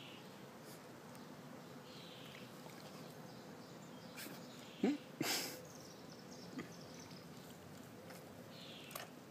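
A Rottweiler gives a short grunt that falls in pitch about halfway through, followed at once by a breathy huff, with a few faint high chirps now and then.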